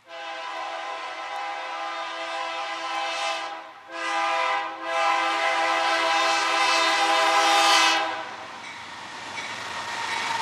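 Air horn of a BNSF C44-9W freight locomotive sounding for a grade crossing: a blast, a short toot and then a longer blast. The horn then stops and the rumble and rattle of the train rolling past builds.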